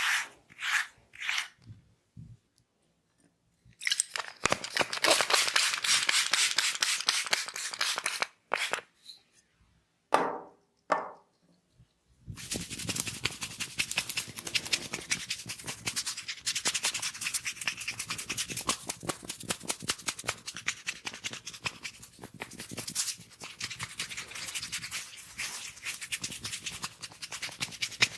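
Hands rubbing and scrubbing the hair and scalp in a head massage: a dense, crackly rub in long stretches. There is a short pause early on, and a few separate sweeping strokes come before the rubbing picks up again for the rest of the time.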